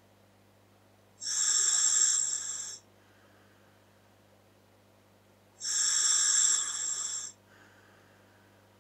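Air hissing through a scuba regulator into a Dräger full-face mask as the wearer breathes, two breaths each about a second and a half long, some four seconds apart.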